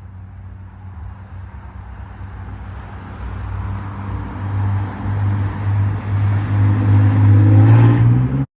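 A motor running with a steady low hum that grows louder over several seconds and rises slightly in pitch near the end, then cuts off abruptly.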